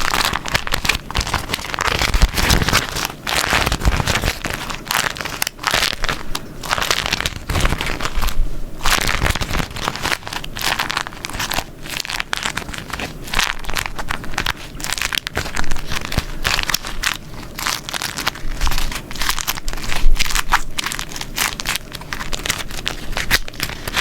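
Beeswax food wrap being crumpled and folded by hand, giving a dense, continuous crinkling with many sharp crackles.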